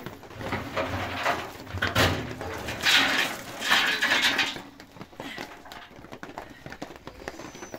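A sheet-metal barrel stove being tilted and emptied: the metal drum scrapes and knocks, with one loud knock about two seconds in, then ash and embers pour out in two rushing bursts around three and four seconds in.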